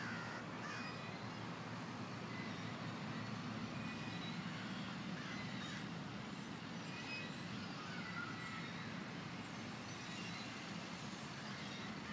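Outdoor park ambience: a steady low rumble like distant traffic, with faint scattered bird chirps throughout.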